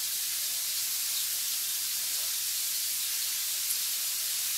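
Steady sizzle of food frying in hot oil in skillets on the stove, with salmon fillets searing and frozen cauliflower rice and mushrooms cooking down. A single small click about three-quarters of the way through.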